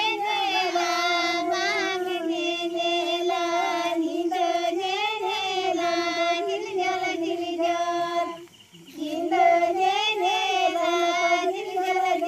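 Women singing a Santali wedding song in high voices, in long held, wavering notes, with a short pause a little past the middle.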